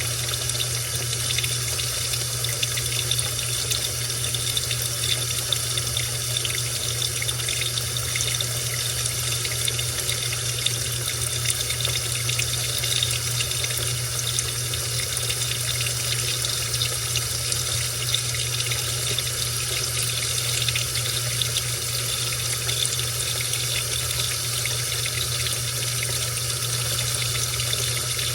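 Household washing machine with water rushing steadily, over a low steady hum.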